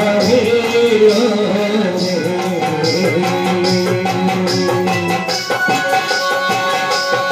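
Live folk-theatre music: a voice sings through a microphone over a barrel-shaped hand drum keeping a steady beat.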